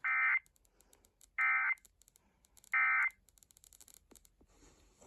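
Emergency Alert System end-of-message signal: three short bursts of SAME digital data tones, about a second and a half apart, marking the end of the alert.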